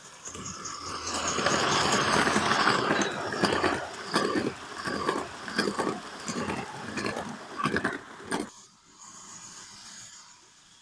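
A Gauge 1 live-steam model of a B1 locomotive runs past close by with a rushing hiss of steam and wheels. Its coaches follow, clicking quickly and unevenly over the track. The sound drops away suddenly about eight and a half seconds in.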